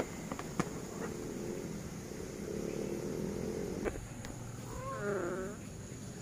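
A cat's claws scratching at a board, a few sharp clicks, then one short meow near the end.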